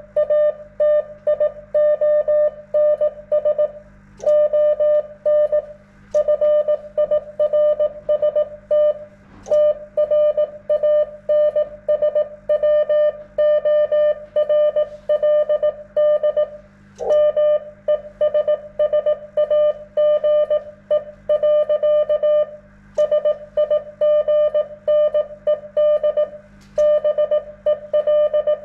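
Morse code from an amateur HF radio station: a steady mid-pitched beep keyed on and off in quick dots and dashes, with short breaks between groups and a sharp click at several of the breaks. A steady low hum runs underneath.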